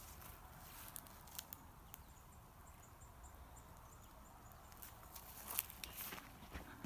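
Footsteps walking over grass and dirt strewn with leaves and bark, with scattered soft crunches and taps. There is a faint run of quick, high chirps from about two to four seconds in.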